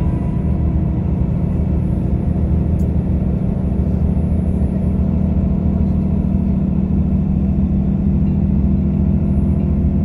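Steady low drone of a bus engine and tyres at motorway speed, heard from inside the vehicle.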